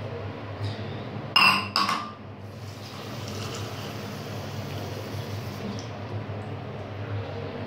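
Two sharp ringing clinks about a second and a half in, an enamel mug knocking against the ceramic washbasin, then tap water running into the mug for about three seconds until the tap is shut. A steady low hum runs underneath.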